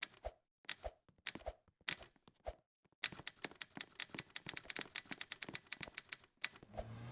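Typewriter keys struck in a slow, steady rhythm, about five clacks a couple of seconds apart at first, then a fast, dense flurry of keystrokes for about three and a half seconds. Near the end a drawn-out, rising mechanical whirr with a low hum swells up.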